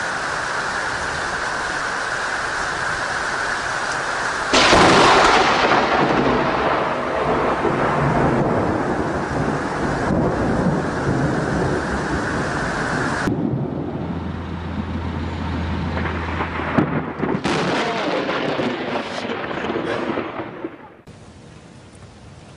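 Steady heavy rain, broken about four and a half seconds in by a sudden close thunderclap that rumbles on for several seconds. A second sharp crack of thunder comes about three quarters of the way through.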